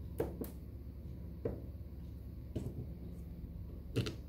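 Small screwdriver and tiny countersunk screws clicking and tapping against a 3D-printed plastic back plate as the screws are driven in: a quick pair of clicks at first, then single clicks about a second apart, the loudest near the end, over a low steady hum.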